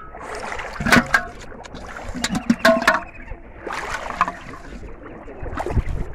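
Shallow water splashing and sloshing as a large catfish is handled in it. There are sharp splashes about a second in and several more between two and three seconds.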